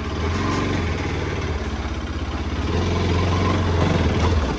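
Bajaj Pulsar RS 200 motorcycle's single-cylinder engine running at low revs, steady, getting a little louder after about three seconds.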